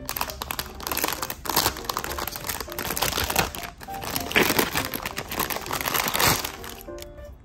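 Clear plastic packaging bag crinkling as it is handled and pulled open, a dense run of close crackles that dies away near the end.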